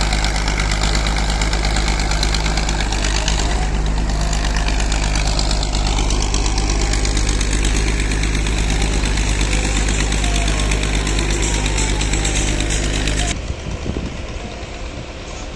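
Heavy diesel engine of earth-moving machinery running hard close by: a steady low drone with a fast, even clattering knock. About 13 s in, it cuts abruptly to a quieter, more distant engine.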